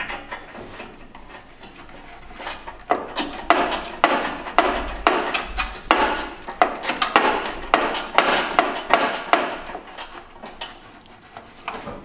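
Metal clinking and rattling as a hand tool works down inside the sheet-metal cabinet of an Attwood 8535-III RV furnace, taking out the screw that holds the high limit switch bracket. A few scattered clicks at first, then a dense run of clatter from about three seconds in until near the end.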